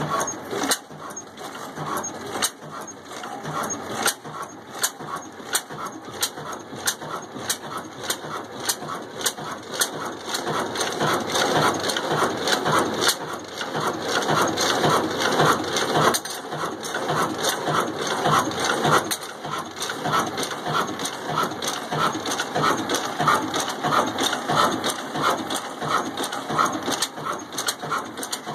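Old black Ruston Hornsby stationary diesel engine running with a quick, regular knocking beat, getting louder about ten seconds in and then holding steady.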